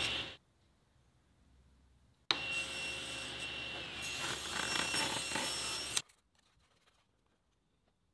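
SawStop table saw running and cutting, a loud steady noise with a high whine in it. It breaks off abruptly just after the start, comes back suddenly about two seconds in and stops abruptly about six seconds in.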